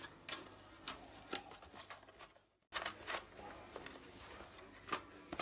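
Hands tucking and pressing thin warqa pastry sheets around the edge of a bastilla in a metal baking pan: faint rustling and light scattered taps, with a short gap of near silence about halfway.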